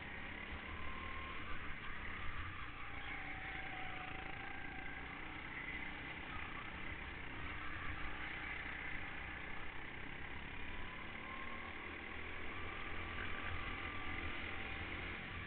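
Go-kart engine running under way, heard from the kart itself, its pitch rising and falling a little as it drives through the corners, over a steady noisy rush.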